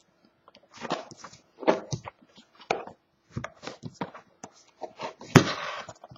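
Handling and unwrapping a sealed box of trading cards: irregular rustling, crinkling and small knocks of cardboard and wrapper. A sharp snap comes about five seconds in, followed by a brief rasping noise.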